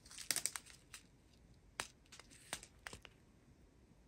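Strips of small plastic bags of diamond-painting drills crinkling as they are handled: a quick cluster of crinkles in the first second, then a few scattered crinkles around two and three seconds in.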